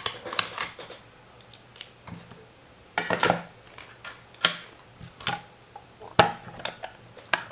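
Metal hand tools clinking and clattering as screwdrivers are picked out: a series of irregular clicks and knocks.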